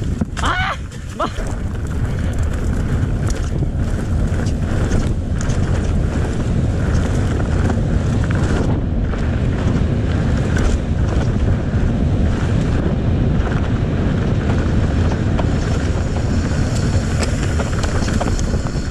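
Wind buffeting the microphone of a handlebar camera on a mountain bike at speed downhill, over a dense rumble of tyres on pavement and dirt trail. Frequent clicks and knocks of the bike rattling over bumps run through it, with a brief high squeal about half a second in.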